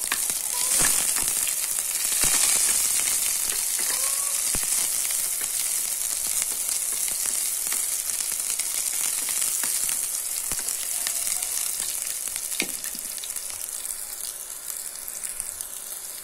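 Chopped onion and garlic sizzling in hot oil in a stainless steel pan, with a few sharp clicks and scrapes as a wooden spatula stirs them. The sizzle eases off a little near the end.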